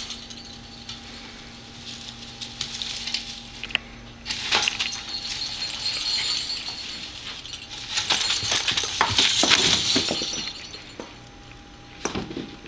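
A cat scrambling through a decorated Christmas tree: branches and tinsel rustling and ornaments clinking, in bursts, loudest about four seconds in and again from about eight to ten seconds.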